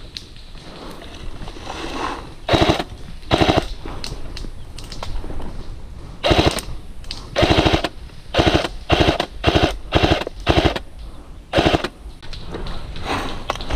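A&K PKM airsoft electric machine gun firing a dozen or so short bursts, each well under a second: two a few seconds in, then after a pause a quick run of about eight more, with a fainter burst near the end.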